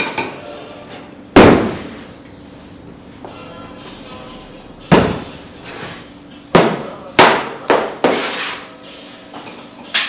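Several sharp, irregular knocks and clacks on a hard work surface, each with a short ringing tail, with a cluster of quick ones near the end, as dough is handled with a metal scraper and scale on a marble bakery table.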